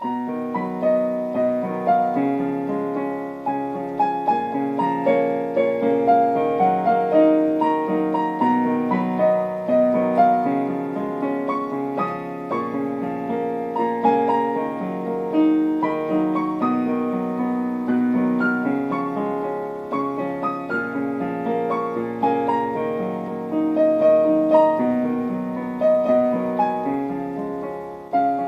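Solo keyboard in a piano sound playing the instrumental intro of a pop song: sustained chords with a melody of single notes over them, each note struck and fading.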